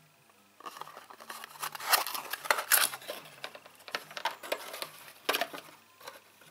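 Small cardboard box of a shaft seal being opened by hand, with the seal slid out of its packaging: an irregular run of rustling and scraping of cardboard and plastic, starting about half a second in and loudest around the second to third second.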